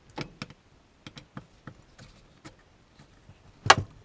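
Scattered light clicks and taps of metal lock hardware being handled while the lever set is taken apart, with one louder clack about three and a half seconds in.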